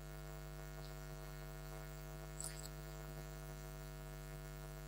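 Steady electrical mains hum, with a couple of faint clicks about halfway through.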